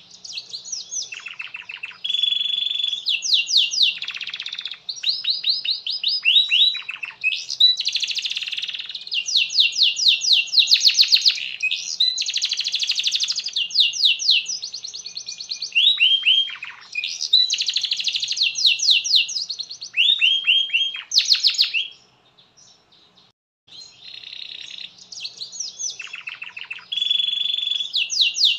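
Domestic canary singing a long song of rapid trills and repeated rolling phrases of quick sweeping notes. It breaks off about 22 seconds in and starts again a second and a half later.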